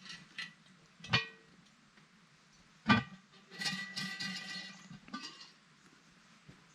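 Background music: a few sparse, plucked guitar notes ringing out one at a time, with a short run of notes in the middle.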